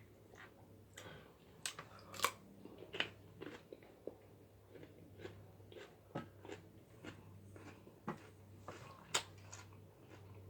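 A person chewing and biting seafood-boil food close to the microphone: irregular wet crunches and sharp clicks, loudest about two seconds in and near the end, over a faint steady low hum.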